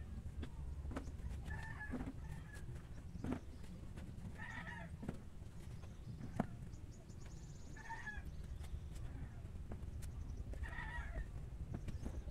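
A chicken calls four times, a few seconds apart, over a steady low background, with a few light knocks.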